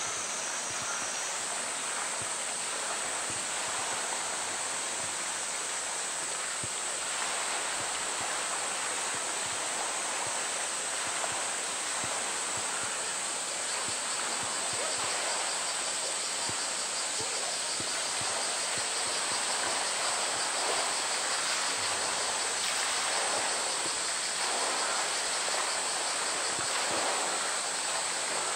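Water in a polar bear's pool sloshing and splashing as the bear swims, under a steady high-pitched hiss.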